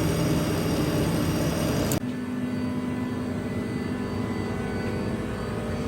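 Steady industrial machine noise, made up of a dense whirr with several steady tones. About two seconds in it drops abruptly to a quieter, even hum.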